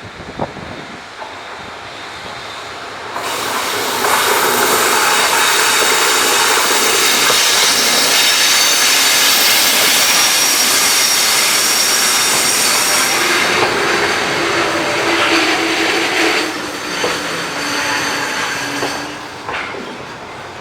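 Freight train hauled by a JR Freight EF65 electric locomotive passing close by: it comes up suddenly about three seconds in and stays loud, with a high steady squeal of wheels on the rails. Near the end it tapers off to the separate clack of wheels over rail joints.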